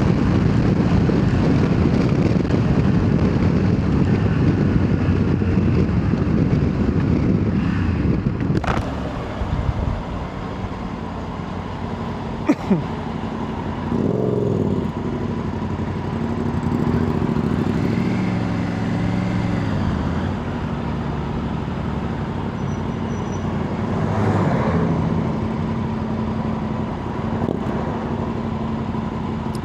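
Motorcycle ridden on the road, with wind rushing over a helmet-mounted camera. The wind noise is loud for the first nine seconds or so, then drops away, leaving the engine note rising and falling in pitch as the bike slows and speeds up.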